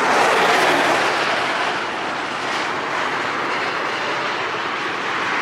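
Steady road and wind noise from a car driving at highway speed, an even rushing hiss with no breaks.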